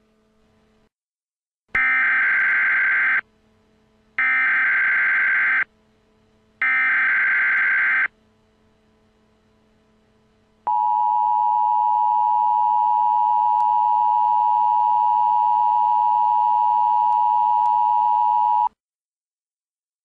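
Emergency Alert System signal: three bursts of the digital SAME header, each a buzzy screech about a second and a half long, followed by the steady two-tone attention signal held for about eight seconds.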